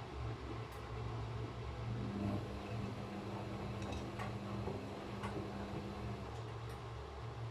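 Gorenje washing machine running a short wash programme: a steady low hum, with the drum motor's steady tone starting about two seconds in and stopping about four seconds later, and a few light clicks.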